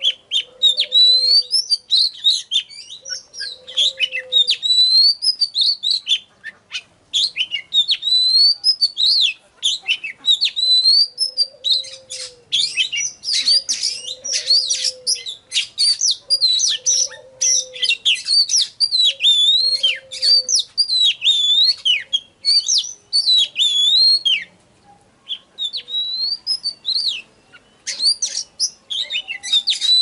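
An Oriental magpie-robin sings a loud, varied song of whistled phrases that glide up and down, with a few brief pauses. A low arched hoot repeats in the background through the first two-thirds.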